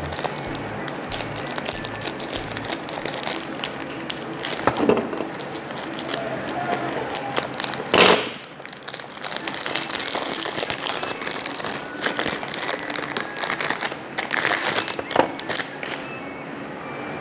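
Clear plastic shrink-wrap crinkling and crackling as it is peeled and torn off a small cardboard toy box, with a few sharp cracks, the loudest about eight seconds in. Background music underneath.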